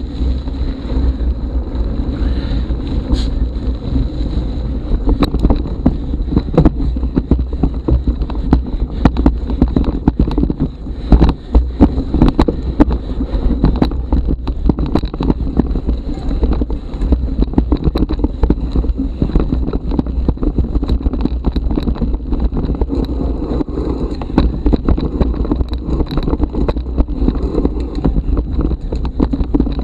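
Mountain bike rolling over a rough forest singletrack: tyres on dirt and roots, with frequent small rattles and knocks from the bike over bumps. Wind rumbles on the microphone.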